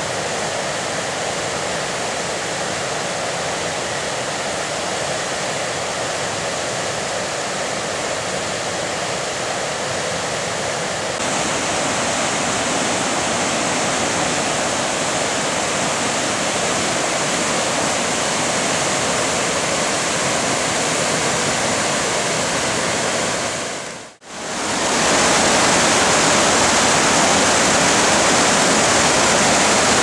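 Steady rushing of river rapids, whitewater pouring over rock, getting a little louder about a third of the way in. After a brief break near the end, a louder rush of the torrent below the Låtefossen waterfall.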